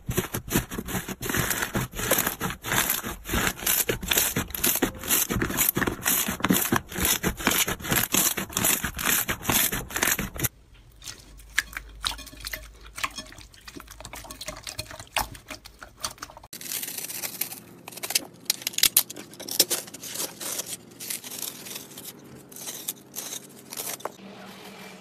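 Slime being pressed and worked by hand, a dense run of crackles and pops. About ten seconds in it cuts to quieter, sparser crackling, and cuts again a few seconds later to more scattered crackles.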